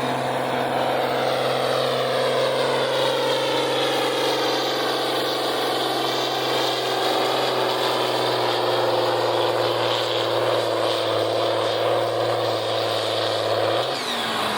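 John Deere 4020 tractor engine running hard under full load while pulling a weight-transfer sled, its pitch holding steady, then sagging slightly in the last few seconds before it drops off near the end.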